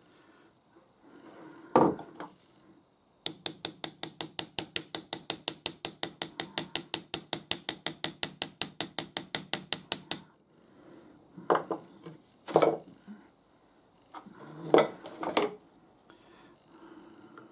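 A ball-peen hammer tapping a socket to drive a ball bearing onto the shaft of a lathe live centre. About three seconds in comes a rapid, even run of light metal taps with a ringing tone, about six a second for some seven seconds, then a few separate knocks.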